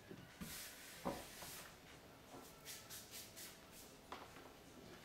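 Faint handling noises from plastic reactor tubes being capped: a few light clicks and knocks, with a soft hiss near the start.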